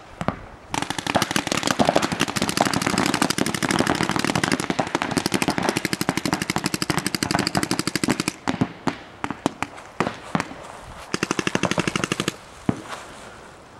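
Several paintball markers firing fast, overlapping strings of shots almost without pause for about eight seconds. The firing thins to scattered single shots, then comes one more rapid string near the end.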